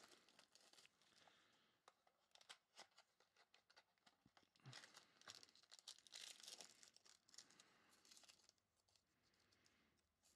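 Faint crinkling and tearing of a foil trading-card pack wrapper being opened by hand, with a busier stretch of rustling about five to seven seconds in.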